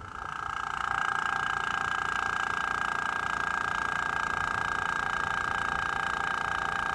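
Small tankless airbrush compressor kicking in and running steadily, coming up to speed over the first second. It is recharging the air line after the pneumatic nailer has been fired.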